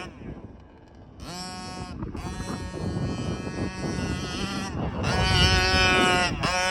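HPI Baja 5T RC car's Zenoah two-stroke petrol engine revving in short throttle bursts. It drops low for the first second, then revs up in several blips that grow louder toward the end.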